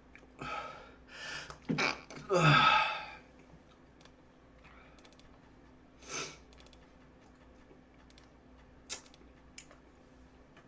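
A man sneezing loudly about two seconds in, after a few sharp breaths in. Scattered faint clicks follow.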